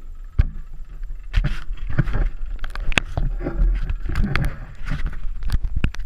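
Handling noise from a small action camera being picked up and turned about: irregular knocks, clicks and scrapes over a low, uneven rumble.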